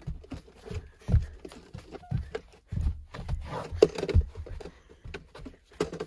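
A child's feet thumping and stomping on the floor as he jumps and dances, in an irregular run of thuds about two a second.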